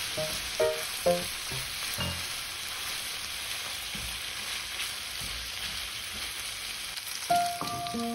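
Sliced fatty pork and spring onions sizzling steadily in a hot non-stick frying pan as they are stir-fried and turned with chopsticks and a spatula. A few short musical notes sound in the first second, and a melody comes in near the end.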